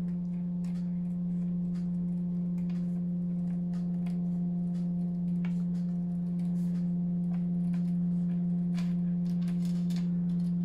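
A steady low electrical-sounding hum with several overtones, unchanging throughout, under faint scattered clicks and rustles of cardstock being handled and trimmed with scissors.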